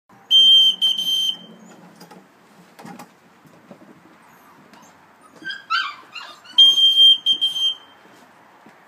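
Dog whistle blown twice, a steady high tone held about a second each time: the signal the Kuvasz puppies have been conditioned to follow. Between the two blasts, the 5.75-week-old Kuvasz puppies whimper and yip.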